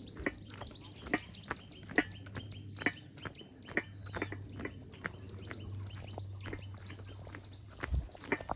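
Footsteps on a stony path, sharp irregular steps about two a second, with insects chirping steadily and high in the background.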